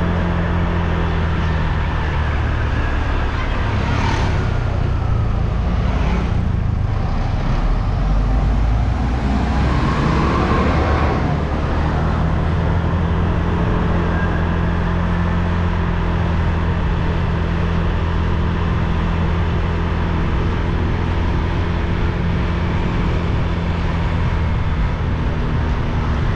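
Motorbike engine running as the bike rides along a street, heard from the rider's seat with wind and road noise. The engine's steady hum shifts for a stretch a few seconds in, then settles back to a steady note.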